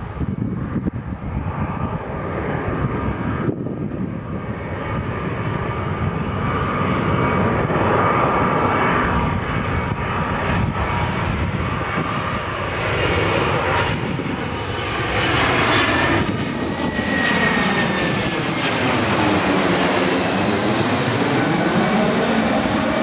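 Airbus A321-200 jet airliner on final approach with its landing gear down, its engine noise growing louder as it comes in. It passes directly overhead near the end with a sweeping, phasing rush and a high whine that falls in pitch.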